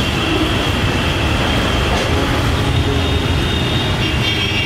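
Busy street traffic: a steady rumble of passing motor vehicles.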